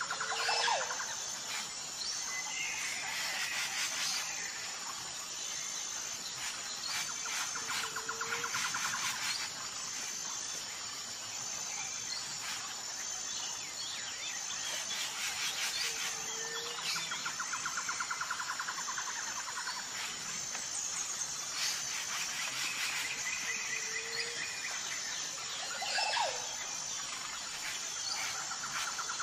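Outdoor nature ambience of birds calling and insects chirring, with a steady pulsing high trill. The same short bird calls and trills come back about every eight seconds.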